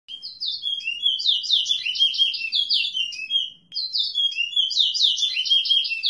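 A songbird singing two long, fast phrases of rapid falling notes, with a short break about three and a half seconds in.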